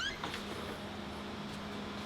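Steady low hum with a faint even hiss of background noise, and a few faint clicks in the first half second.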